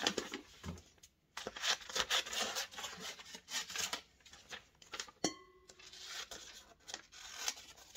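A sheet of printer paper rustling and flapping as it is handled, with a short ringing clink just after five seconds in, then scissors snipping through the paper near the end.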